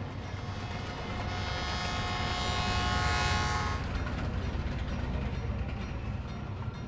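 Passenger train passing: a steady low rumble of the carriages on the track, with a high squeal of several held tones from about a second in, fading out about four seconds in.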